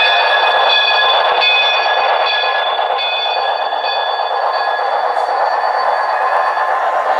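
Model train rolling past on the layout's track, a C&O T1 steam locomotive hauling flatcars: a steady rolling noise with several high, steady whining tones that fade toward the end.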